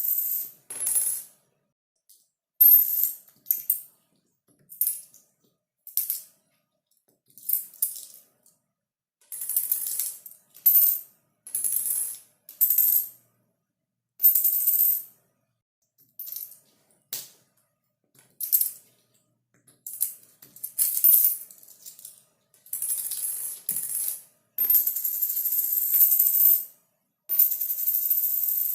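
Metal coins dropping and clinking, one separate drop after another with dead silence between, each a bright, high-pitched jingle. Near the end a few drops ring on for two or three seconds.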